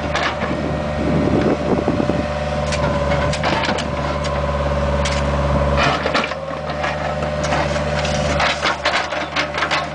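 Bobcat 430 ZHS mini excavator's diesel engine running under hydraulic load, with repeated cracks and crunches of broken asphalt as the bucket rips it up. The engine pulls harder for a couple of seconds around the middle, then eases off about six seconds in.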